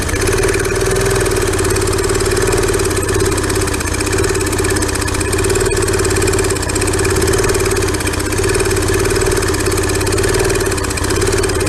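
Small Briggs & Stratton engine on a pressure washer running unevenly, its note swelling and sagging every second or two. It is struggling as old gasoline still mixed in the tank works through it.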